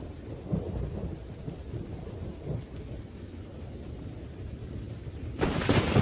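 Thunderstorm with rain falling and a low rumble of thunder, then a sudden loud thunderclap near the end.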